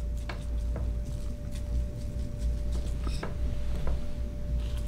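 Steady low hum with a faint steady tone above it, and a few faint scattered clicks and taps.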